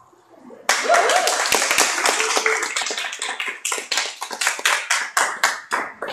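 Small audience applauding, breaking out suddenly about a second in with a cheer or two, then thinning to scattered single claps near the end.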